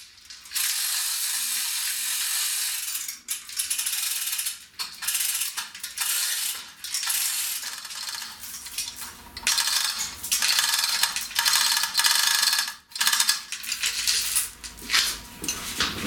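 Hand chain hoist being worked to lift an engine, its chain and ratchet clattering in stop-start runs with short pauses between pulls.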